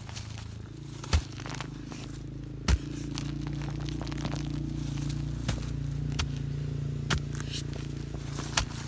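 A digging tool chopping into forest soil and dry leaf litter: about six sharp, irregular strikes with crackling of dry leaves, over a steady low hum.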